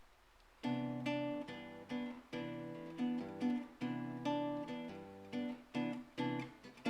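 Acoustic guitar strumming a chord progression as a song's intro, with chords struck about every half second to a second and left to ring.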